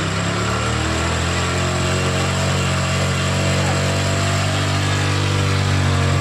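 Honda Dream 110cc single-cylinder four-stroke motorcycle engine idling steadily, warmed up just after a top-end rebuild.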